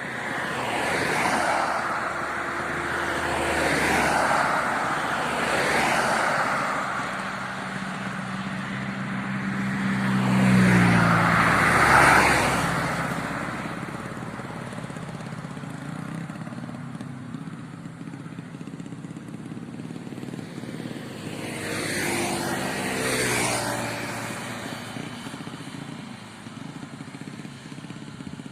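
Yamaha Vega ZR motorcycle's single-cylinder four-stroke engine, bored up to 130cc with a 53.5 mm piston and a custom camshaft, running and rising and falling in pitch several times. It is loudest about twelve seconds in and again around twenty-two seconds in.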